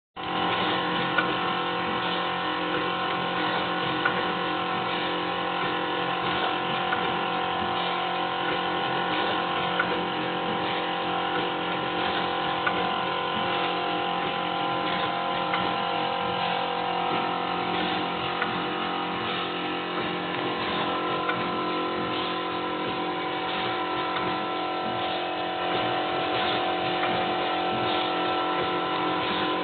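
Wire ring coiling and welding machine running: a steady mechanical hum with a few sharp clicks now and then.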